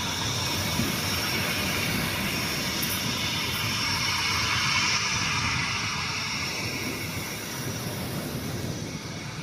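Jet airliner engines passing: a high whine over a steady rush of noise, loudest about five seconds in and fading toward the end.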